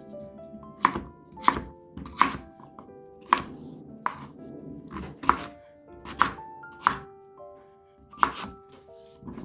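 Kitchen knife chopping on a cutting board, about a dozen sharp, unevenly spaced strikes roughly one every 0.7 s, over background music.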